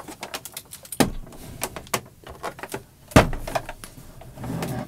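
Beige plastic case of an Atari 800 computer being handled and turned over on a wooden desk: scraping and small clicks, with two heavier knocks, the louder one about three seconds in as the case is set down.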